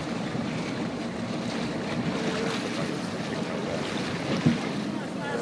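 Wind buffeting the microphone over a steady wash of water against a zodiac's hull, with one sharp thump about four and a half seconds in.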